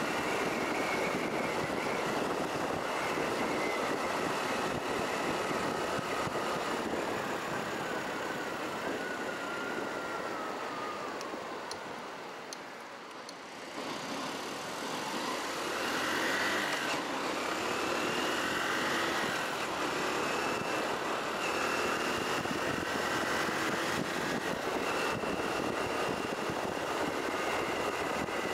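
Honda Cross Cub 110's single-cylinder four-stroke engine running under way, with wind and road noise. The engine note falls as the bike slows about a third of the way in, goes quieter for a couple of seconds around the middle, then rises again as it accelerates and settles back to steady cruising.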